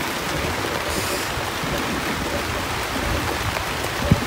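Heavy rain falling steadily, a dense even hiss of drops on leaves and ground, with a single sharp knock about four seconds in.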